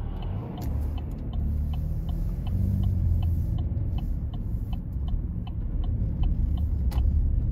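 Car engine and road rumble heard inside the cabin while driving, with the turn-signal indicator clicking evenly, about two to three clicks a second, as the car turns. A single sharper click near the end.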